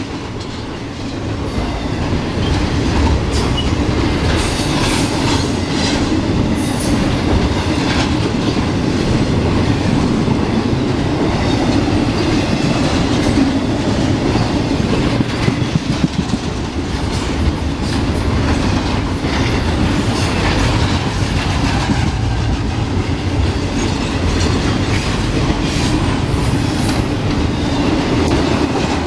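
Freight train cars rolling past close by, wheels clacking steadily over the rail joints with a continuous rumble and a faint high wheel squeal now and then. The railfan suspects the train might be dragging equipment.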